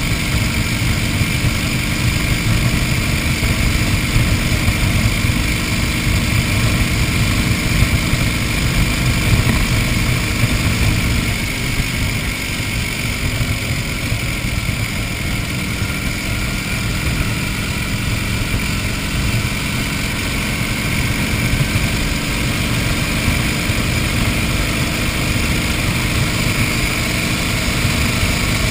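1931 Indian 101 Scout's flathead V-twin engine running steadily while the motorcycle cruises on the road, heard from on the bike, with a slight easing in loudness about halfway through.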